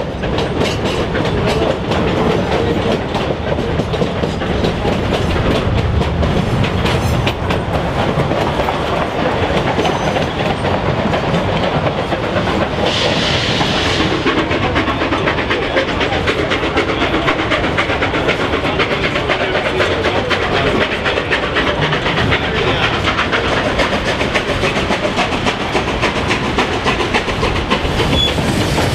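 Durango & Silverton narrow-gauge steam train's cars rolling along the track, heard from aboard an open car: a steady rumble with wheels clicking over the rail joints. A brief hiss comes about halfway through.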